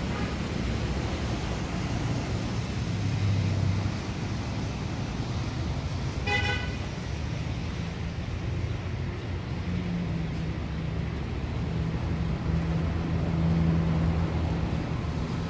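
Road traffic running steadily, with a short vehicle horn toot about six seconds in.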